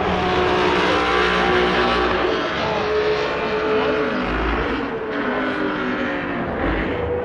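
Vintage V12 Formula One car engines running out on the circuit, their notes rising and falling as they rev and change gear, heard from the grandstand.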